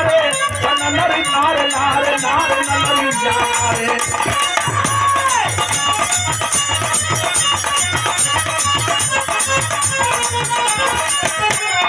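Instrumental interlude of birha folk music: a steady drum rhythm with jingling, rattling percussion under a melody line.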